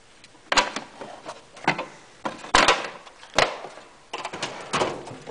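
Sharp clacks and knocks from the metal drawers of a rolling tool chest being shut and pulled open, with tools shifting inside. The knocks come about one a second and closer together near the end.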